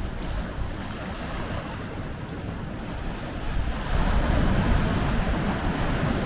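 Ocean surf washing against the coast, with wind gusting on the microphone; it grows louder about four seconds in.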